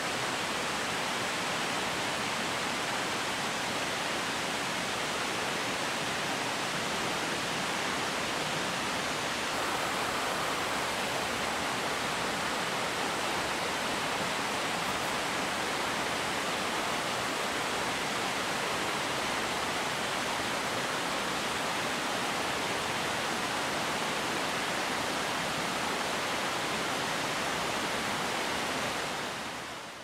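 Steady rush of water flowing through a rocky stream below a largely frozen waterfall, an even hiss with no breaks, fading out at the very end.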